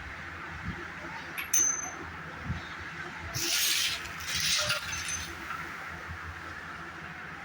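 Steel gear pinions being handled and slid off the gearbox shaft of a motorcycle engine: a sharp metal clink with a short ring, then two brief scraping slides of metal on metal, and another light ring.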